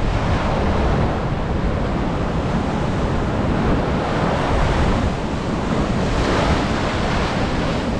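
Ocean surf washing up on a sandy beach, swelling a little about a second in and again near the end, with wind rumbling on the microphone.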